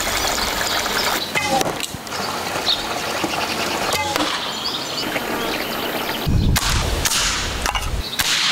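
Outdoor wood-fire cooking in several short cuts: sharp crackles and pops over a steady hiss, the sound changing abruptly every second or two.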